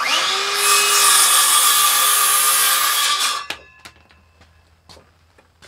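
Cordless circular saw starting up and cutting through a pressure-treated board for about three and a half seconds, then the blade spinning down with a fading whine.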